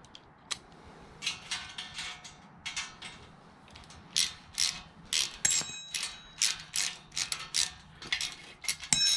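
Ratchet wrench clicking in short, irregular strokes, about two or three a second, tightening bolts on a metal sand scoop, with a brief metallic ring now and then.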